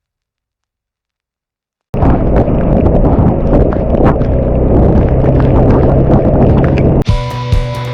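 After a silent start, a loud rough rumble of wind buffeting and motorcycle engine noise from a single-cylinder Suzuki Gixxer SF 250 being ridden in rain, full of crackling hits, begins suddenly about two seconds in. Music takes over near the end.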